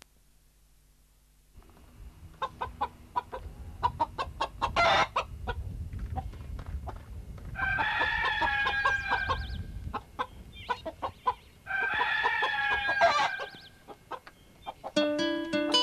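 Chickens clucking in short repeated calls, with a rooster crowing twice, each crow about two seconds long. Plucked-string music starts near the end.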